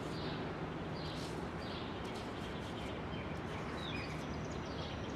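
Outdoor ambience: steady background noise with a low hum and a few faint bird chirps scattered through, one a short quick glide near the end.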